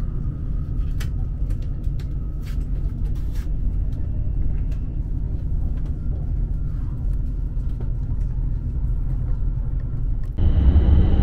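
Steady low rumble of a Tohoku Shinkansen train running, heard inside the passenger cabin, with a few light clicks in the first few seconds. About ten seconds in the sound jumps louder, with a deeper rumble and a high steady tone.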